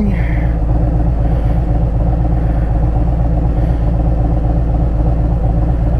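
Harley-Davidson Road Glide's V-twin engine idling steadily in neutral.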